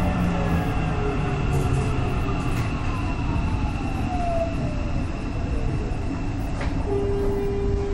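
Seibu 30000 series electric train slowing under braking. Its motor whine falls steadily in pitch as the speed drops, over a steady running rumble, and a new steady tone sets in about seven seconds in.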